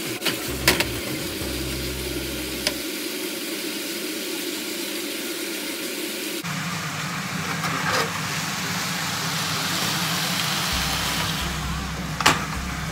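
Food being stirred in a frying pan over a gas flame: a steady hiss with a few sharp clicks of the utensil against the pan.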